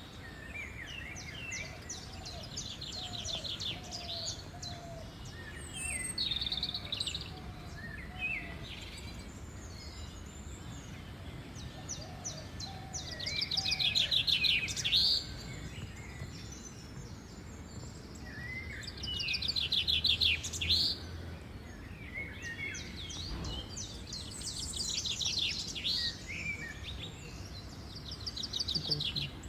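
Songbirds chirping and singing: bursts of rapid, high trilled notes recurring every few seconds, with scattered shorter calls between them, over a steady low background rumble.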